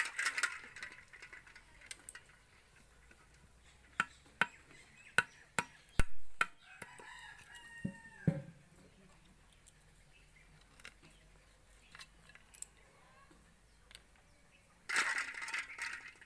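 Snail shells cracking with a series of sharp clicks around 4 to 6 seconds in, and a splashing rattle at the start and near the end as a hand stirs through a pot of water. A rooster crows once in the background about 7 seconds in.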